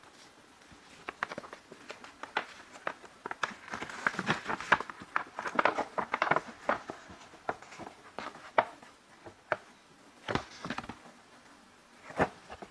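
Folded paper gift bag being opened out by hand: paper crinkling and rustling with many sharp crackles, busiest in the middle, and a couple of louder crackles near the end.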